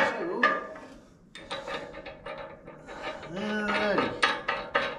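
Steel pins and bolts clinking, knocking and scraping against a mini excavator bucket's steel pin ears as they are put back in by hand, with a loud ringing metal clank at the start.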